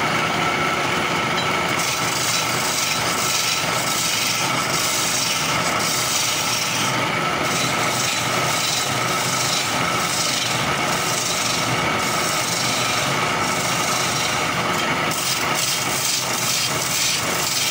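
Wood lathe running with a steady hum while a hand chisel cuts into a spinning wooden spindle, the scraping hiss of the cut coming and going in repeated passes from about two seconds in.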